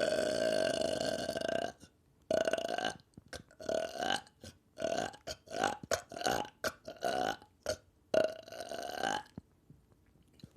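A person burping: one long, steady belch that stops about two seconds in, then a quick string of short burps, and a final longer belch near the end.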